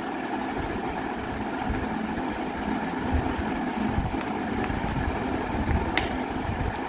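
Steady mechanical hum with an even noise beneath it, and a single sharp click about six seconds in.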